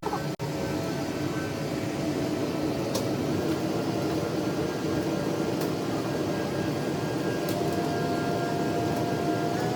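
Blower of a large Carrier air handling unit running: a steady rushing noise with a few faint whining tones over it. The blower is out of balance and makes a noise problem.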